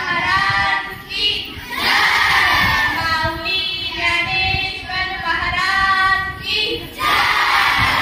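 A group of children singing a devotional song in unison, twice breaking into a louder group shout, about two seconds in and near the end.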